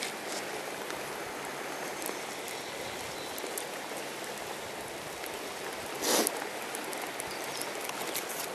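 River current running over a shallow riffle: a steady rush of water, with one brief louder swish about six seconds in.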